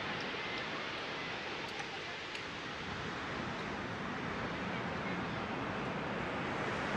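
Steady rush of ocean surf with wind.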